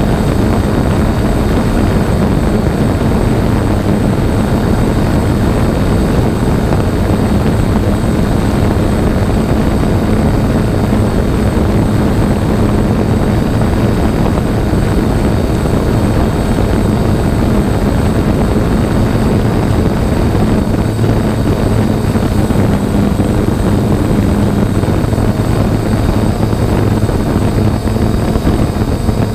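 DJI Phantom quadcopter's electric motors and propellers buzzing steadily while it hovers, picked up by the GoPro Hero 4 mounted on the drone, with a constant low hum and a thin high whine.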